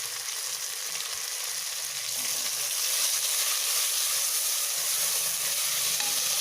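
Onion, tomato and curry leaves sizzling in hot coconut oil in a pressure cooker. The steady sizzle grows louder about two to three seconds in.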